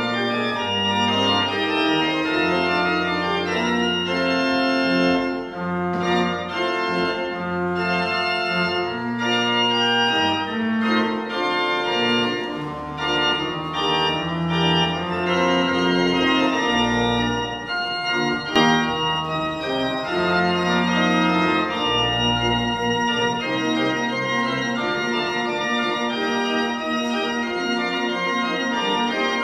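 Pipe organ, the Arp Schnitger organ of the Ludgerikirche in Norden, playing a polyphonic piece: several lines of held notes moving over a low pedal bass.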